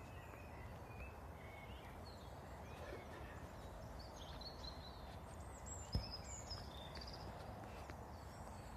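Outdoor background: a steady low rumble with birds chirping in short high calls, busiest in the second half, and a single sharp knock about six seconds in.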